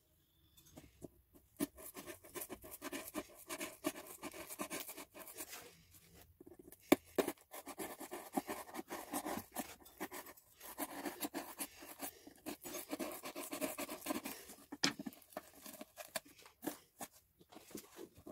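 Utility knife blade cutting through corrugated cardboard: a run of irregular scratches and clicks in short strokes, broken by brief pauses, with one sharp snap about seven seconds in.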